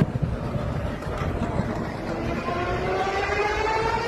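Background crowd noise, then from about two seconds in a racing car's engine is heard, its note climbing steadily in pitch as the car accelerates up the track.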